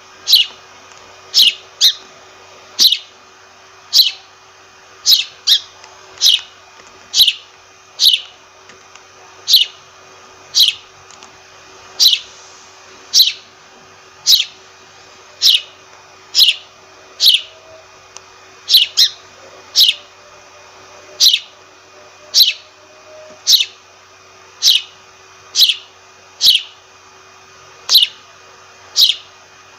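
Sparrow chirping: short, sharp single chirps that fall in pitch, repeating about once a second, now and then two in quick succession.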